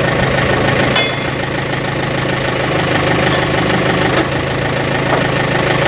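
A tractor engine idling steadily, with a couple of sharp metal clinks, about a second in and again near the four-second mark, from a lifting chain being unhooked.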